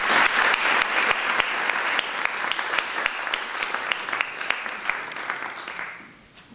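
A small audience applauding: many hands clapping steadily, then dying away in the last second.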